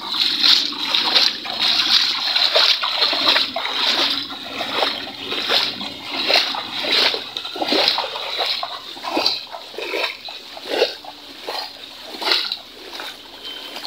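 Footsteps wading through shallow, knee-deep rain floodwater, a steady series of splashing steps a bit more than one a second.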